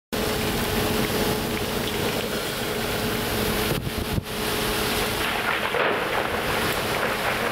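Steady rushing wind and sea noise aboard a vessel in a storm, with a steady hum that stops about five seconds in.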